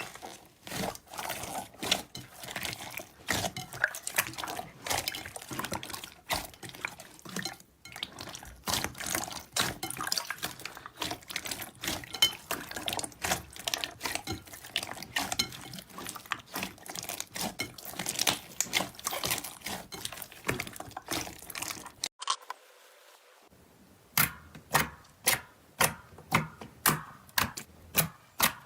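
Slime being squeezed and worked by hand: a dense run of wet clicks and pops. After a short break, slower, evenly spaced clicks follow, about two a second.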